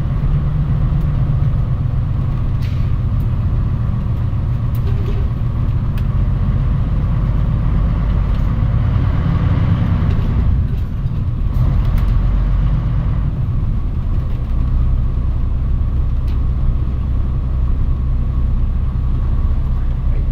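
Cabin sound of a Mitsubishi Fuso Aero Star city bus under way: a steady low rumble of its diesel engine and road noise, with a few light clicks and rattles.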